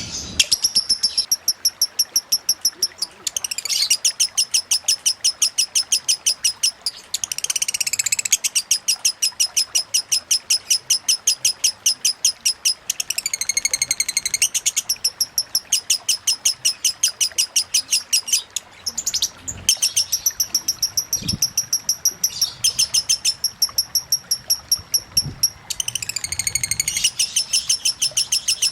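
Lovebird in continuous 'konslet' song: long runs of fast, evenly repeated high ticking chirps, about four or five a second, broken by a few brief downward-sweeping trills and short pauses. Faint running water hisses underneath.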